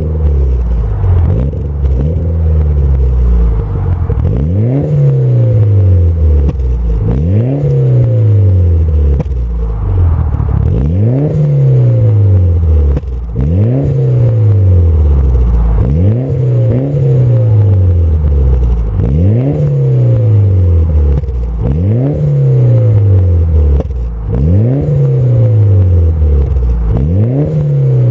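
Mitsubishi Lancer Evolution VIII's turbocharged 4G63 four-cylinder, breathing through an HKS exhaust, revved over and over: about a dozen quick climbs in revs, each dropping back more slowly, roughly every two and a half seconds.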